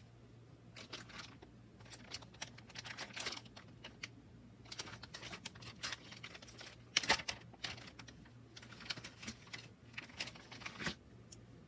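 Hands unwrapping and handling a small guidebook and its packaging: irregular light clicks, taps and rustles. The loudest cluster comes about seven seconds in.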